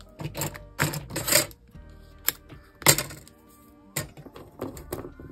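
Soft background music under the handling of paper and double-sided tape: a few short crackles and clicks and a longer rustle about a second in.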